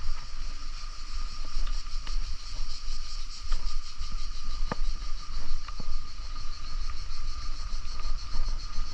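Wind buffeting the microphone of a camera on a moving bicycle, a gusty low rumble over a steady high hiss, with a few sharp clicks.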